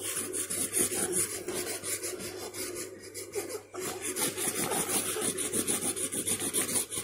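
Crayon scribbling hard on paper: a child colouring in with rapid back-and-forth strokes, several a second, with a brief pause about halfway.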